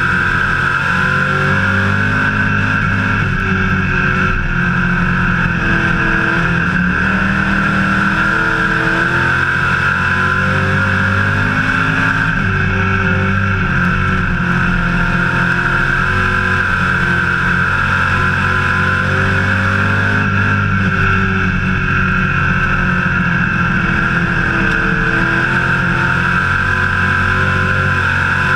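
Hobby Stock dirt-track race car's engine at racing speed, heard from inside the cockpit, its pitch rising and falling again and again as the throttle comes on and off around the laps.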